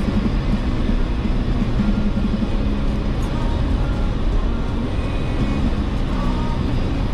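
Jeep Wrangler driving on an off-road trail: a steady engine and drivetrain rumble.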